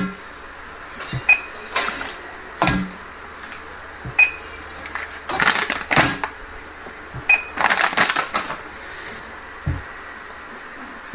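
Cash register smart scale giving short high beeps every few seconds, amid knocks and clatter of loose goods being set on the scale and handled at the counter.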